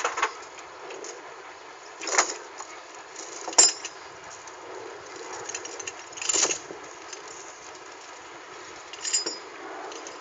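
Short metal clanks and jingles, about five of them a couple of seconds apart, a few with a brief high ring, over steady background noise, from men handling gear at the side of a self-loader truck.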